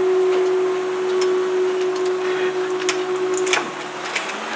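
Railway level crossing warning alarm sounding one steady tone, which cuts off about three and a half seconds in as the red warning lights go out. A few sharp clicks come during it.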